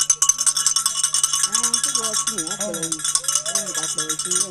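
A small metal bell rung rapidly and without a break, a dense ringing jangle that starts at once, with several voices singing over it.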